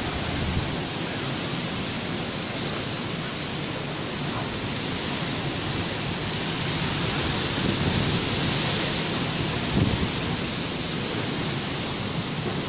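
Cyclone-force wind rushing as a steady dense hiss, swelling in gusts about two-thirds of the way through, with a brief sharper gust near the end.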